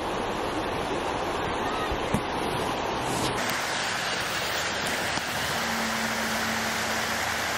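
Steady rushing of river water, its tone shifting about three seconds in.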